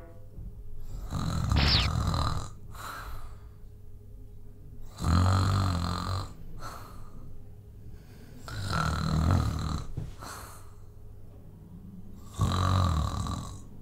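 A man snoring: four long snores about every three and a half seconds, with softer breathing between them. A brief rising whistle sounds during the first snore.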